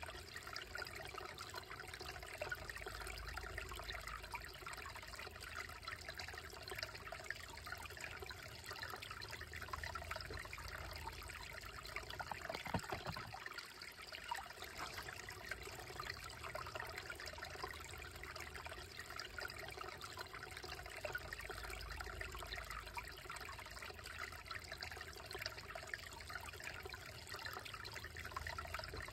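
Shallow, slow-moving creek trickling and babbling over rocks in a steady, even flow, with one brief click about halfway through.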